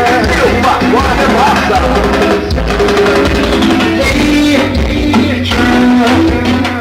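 A song with singing and drums played loud on a car sound system inside the cabin, with heavy bass from Bravox UXP subwoofers and Eros 600 mid-range speakers.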